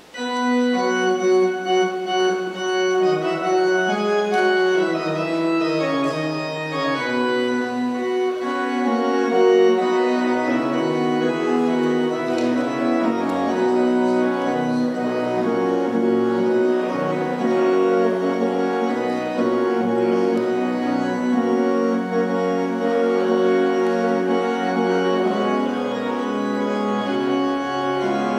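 Church pipe organ beginning to play right at the start, then held chords and moving lines throughout: the postlude after the benediction.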